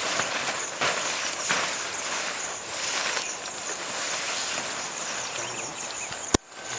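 Outdoor ambience: a steady hiss with a thin high insect drone over it and a few soft rustling knocks. A single sharp click about six seconds in, after which the sound drops out briefly.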